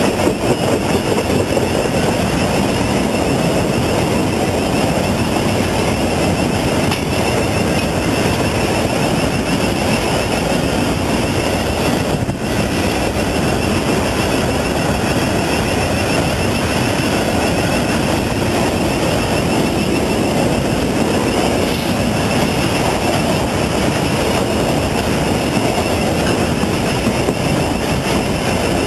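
Freight train wagons rolling past close by: a loud, steady rumble and clatter of steel wheels on the rails.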